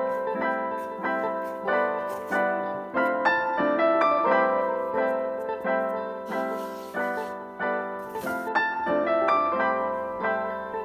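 Background piano music, with notes struck in an even rhythm.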